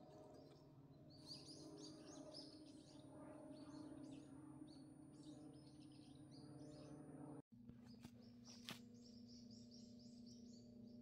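Faint high chirping of small birds, many short notes at varying pitches in quick succession, over a low steady hum. The sound breaks off briefly about seven and a half seconds in, and a single click follows about a second later.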